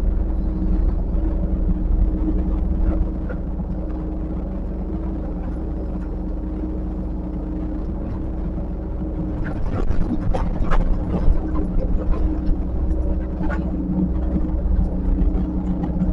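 Diesel engine of a heavy earthmoving machine running steadily, with a louder spell of metal clanking and rattling about ten seconds in.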